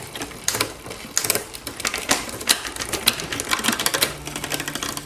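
Bicycle chain and rear derailleur clicking and ticking irregularly as the drivetrain is turned by hand. The noise persists even with the derailleur set very straight, after the mechanic had suspected a bent rear derailleur.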